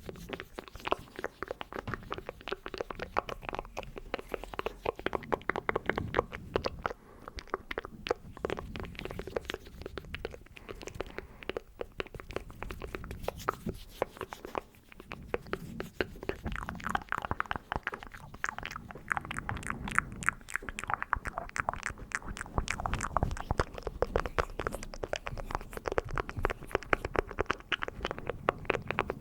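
Close-miked ASMR mouth and hand sounds: a dense, unbroken run of rapid wet clicks and crackles.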